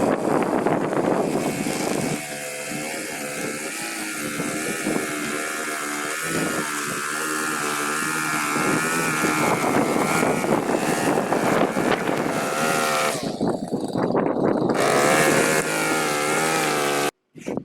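Small petrol engine of lawn-care equipment running steadily, its pitch wavering slightly, before it cuts off suddenly near the end.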